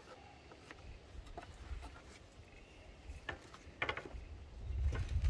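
Light, scattered taps and clicks of a speed square and pencil being handled against a timber board, the sharpest two just before the square is lifted away. A low rumble builds about four and a half seconds in.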